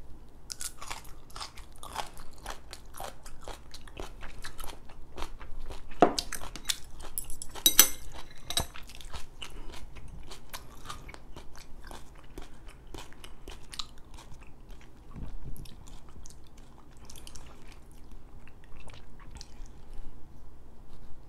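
Close-up chewing of crunchy kimchi: quick, wet crunches, loudest about six and eight seconds in, then slower and sparser.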